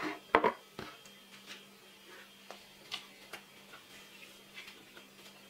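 A kitchen knife and a plate clinking: two sharp clicks about half a second in, then a scatter of faint light taps.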